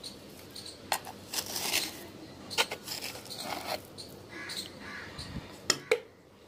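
A wooden stick scraping and pressing crumbly moist soil in a plastic pot, with scratchy rustles and several sharp clicks of the stick against the pot, two of them close together near the end.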